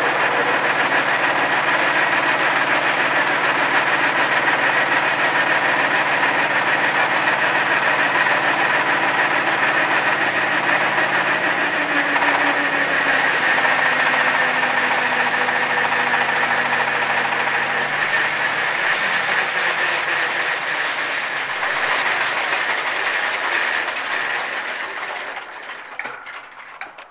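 Stationary engine driving a pellet mill that is pressing ground tree bark into pellets. It runs steadily, its pitch drops about halfway through, and it then winds down and stops near the end.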